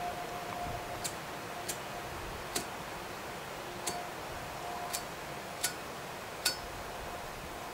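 Tobacco pipe being lit and puffed: seven small sharp clicks at uneven spacing of about a second, the later ones a little louder, over a steady faint background hiss.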